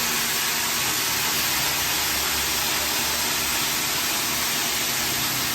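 Steady, even hiss of rushing noise with no pauses or changes.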